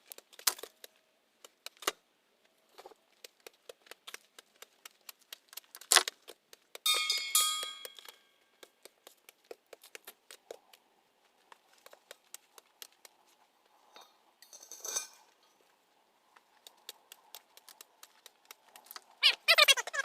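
A run of scattered clicks, taps and knocks of hard objects being handled, with a brief ringing clink about seven seconds in.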